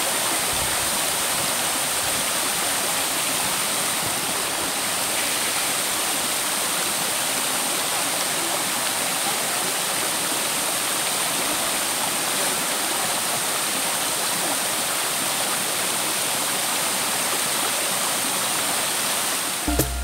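Steady, even rush of water from the Main Fall at Ng Tung Chai, a tall waterfall falling down a rock face, heard up close. Plucked-string music cuts in right at the very end.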